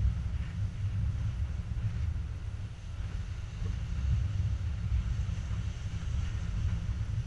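Wind buffeting the microphone in a low, uneven rumble, over the fainter hiss of surf washing onto rocky shoreline.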